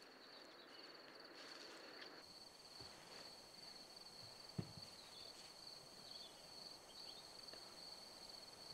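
Faint, steady, high-pitched trill of a stridulating insect, with a single soft thump about four and a half seconds in.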